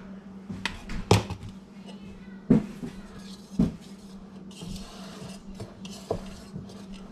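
A spoon and mixing bowls clinking and knocking as flour is spooned into batter and stirred: three sharp knocks in the first four seconds, then a softer scraping of stirring. A steady low hum runs underneath.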